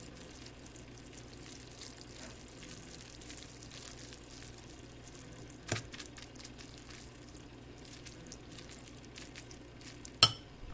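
Metal fork stirring cooked ramen noodles in a bowl: soft, wet squishing with faint scrapes. A sharp clink of fork against the bowl comes about halfway through, and another near the end.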